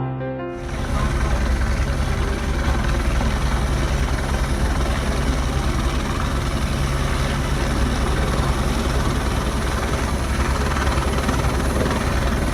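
Helicopter in flight: steady rotor and turbine noise with a fast, even blade beat. It cuts in about half a second in, as a piano tune ends.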